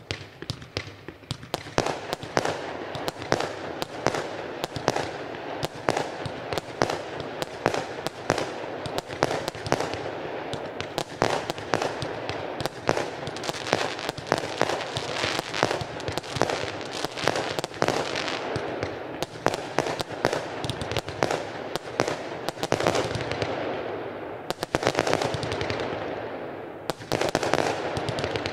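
Consumer firework battery (cake) firing: a continuous run of shot launches and aerial bursts with dense crackling, several cracks a second, and a louder cluster of bangs near the end.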